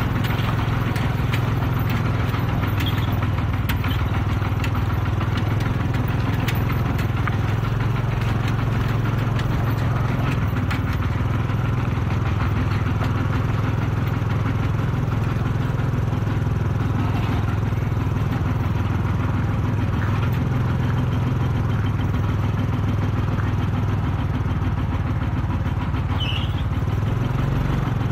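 Single-cylinder diesel engine of a Kubota RT-120 Plus two-wheel tractor running steadily at a constant pace while it pulls a loaded trailer.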